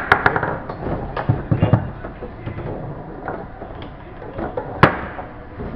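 Foosball game on a Tornado table: sharp clacks of the hard ball struck by the players' men, a quick run of them at the start and a single loud one about five seconds in, over background chatter.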